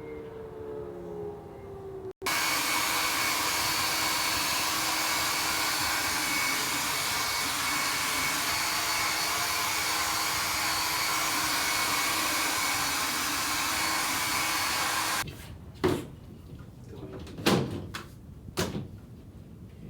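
A small electric motor pushing air, like a blower, runs with a loud, steady rushing noise. It starts abruptly about two seconds in and cuts off abruptly after about thirteen seconds. A few knocks and clicks follow near the end.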